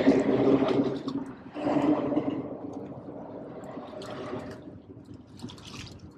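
A hooked striped bass thrashing and splashing at the water's surface beside a kayak, in bursts that are loudest in the first two seconds. A steady low hum runs underneath.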